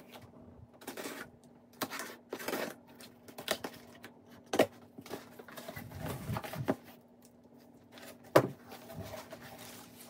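Cardboard shipping box being cut open with scissors and unpacked: irregular scraping, tearing and rustling of tape, cardboard flaps and packing paper, with a few sharp knocks, the loudest about eight seconds in.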